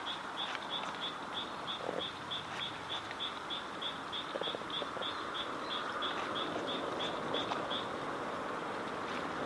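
A bird calling a rapid run of short, high, evenly spaced notes, about three a second, that stops shortly before the end, over a steady hiss. A sharp click comes right at the start.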